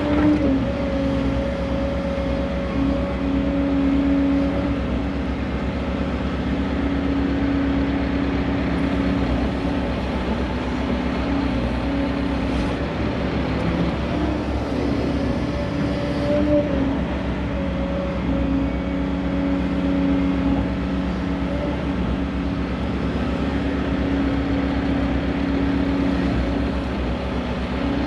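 Volvo excavator's diesel engine and hydraulics running steadily as it digs and swings loads, heard from inside the operator's cab: a continuous hum with a pitched tone that shifts slightly now and then.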